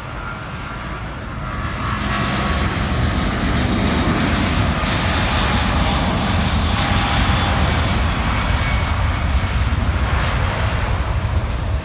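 Boeing 777-200ER's twin Rolls-Royce Trent 892 turbofans at takeoff thrust, growing louder over the first two seconds and then holding at a loud, steady roar.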